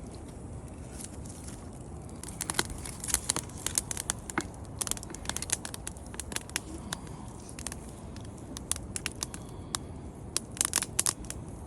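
A dog chewing on a wooden stick: irregular sharp cracks and crunches of splintering wood, starting about two seconds in and coming in clusters.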